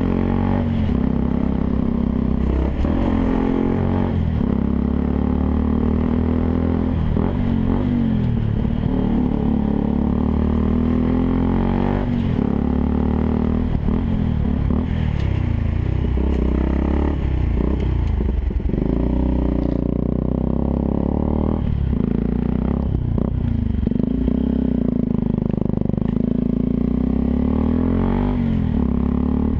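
Yamaha WR125R's single-cylinder four-stroke engine running through a Takkoni aftermarket exhaust, its pitch shifting now and then, with wind rumbling on the microphone.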